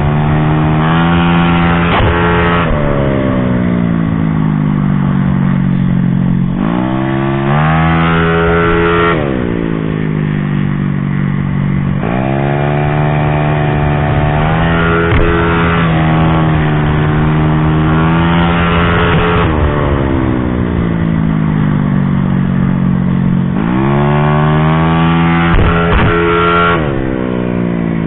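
Honda Beat scooter's engine under hard riding, its pitch climbing under throttle and dropping away as the throttle is closed for corners, several times over.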